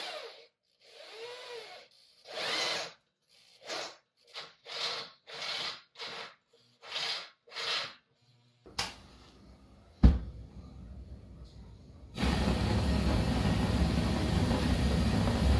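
Corded power drill with a step bit cutting holes in the iron pipe fitting of a homemade gas forge burner, run in about nine short bursts over the first eight seconds. A sharp pop comes about ten seconds in, and from about twelve seconds the lit gas burner gives off a loud, steady rushing noise.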